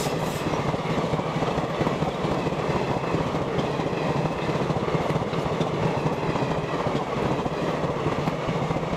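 Indian Railways passenger train coaches passing close by, a loud, steady noise of wheels running on the rails.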